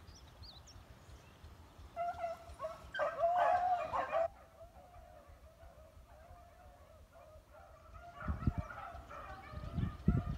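A pack of beagles baying as they run a rabbit's trail, several hounds giving voice together, loudest about three to four seconds in, then fainter and rising again near the end. A couple of low rumbles near the end.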